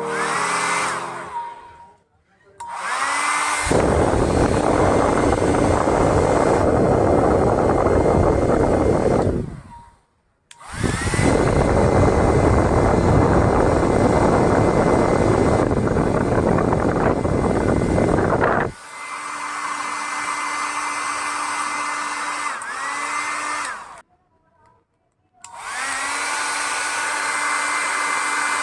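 Philips 1000-watt hair dryer switched on and off several times, each start bringing a rising motor whine. For long stretches it runs with loud rushing air, then more quietly with a steady motor whine.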